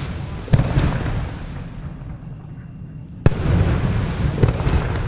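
Aerial firework shells bursting: a sharp bang about half a second in and another past three seconds, each followed by a long rolling echo, with a fainter crack near the end.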